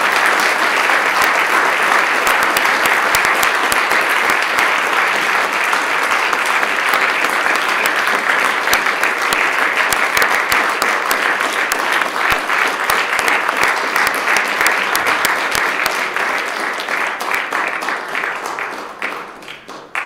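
Many people applauding in a large chamber, a steady dense clapping that thins out and stops near the end.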